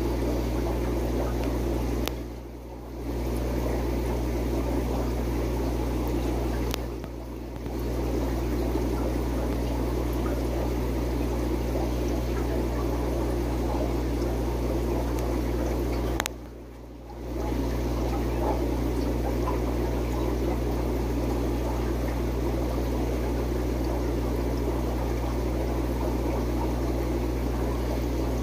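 Aquarium filter or pump running steadily, with water splashing and trickling over a low electrical hum. The sound dips briefly three times, each dip starting with a click.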